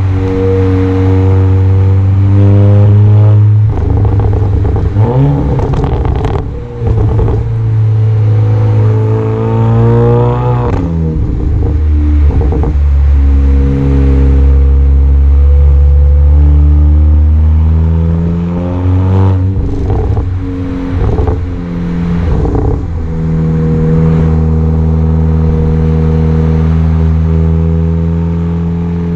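Exhaust of a tuned VW Golf 7 GTI's turbocharged 2.0-litre four-cylinder, heard right at the tailpipe while driving. The engine note pulls and rises, then drops at each of several gearshifts, with short crackles where the throttle closes from the overrun-cut tune.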